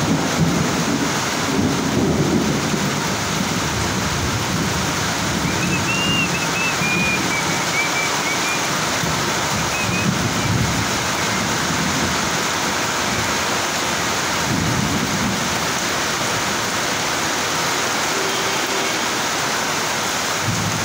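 Heavy monsoon rain falling steadily, with low rumbles of thunder swelling up a few times.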